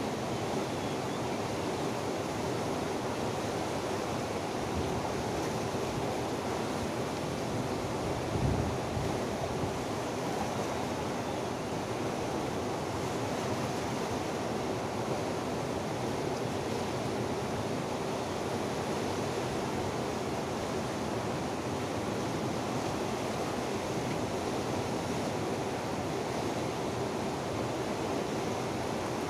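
Steady rush of a fast, silt-laden river running over rocky rapids, with a brief low bump of wind on the microphone about eight seconds in.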